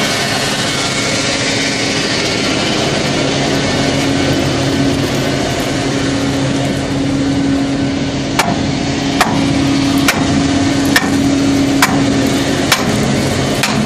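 Steady engine hum from oilfield machinery, with a run of about seven sharp metal knocks, roughly one a second, starting a little past halfway.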